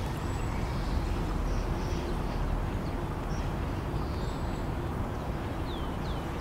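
Outdoor ambience: a steady low rumble with small birds chirping, including a quick run of short falling chirps near the end.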